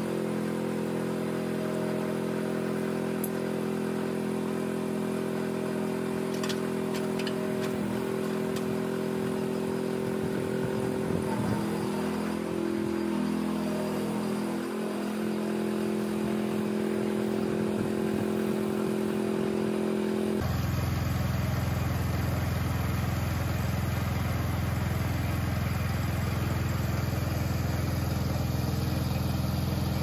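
Garden tractor engine running steadily. About two-thirds of the way through, the sound switches abruptly to a lower, heavier engine note.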